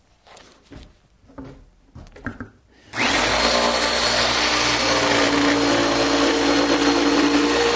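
A handheld electric scroll saw starts suddenly about three seconds in, then runs steadily and loudly. Before it starts there are a few faint handling knocks.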